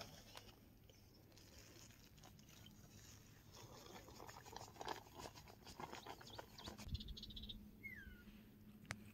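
Near silence: faint outdoor ambience with scattered light clicks and rustles, and one short falling chirp about eight seconds in.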